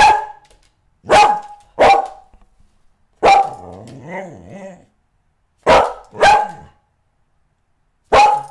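A dog barking: about seven short sharp barks spaced roughly a second apart, some in quick pairs, with a wavering drawn-out vocal sound after the fourth bark.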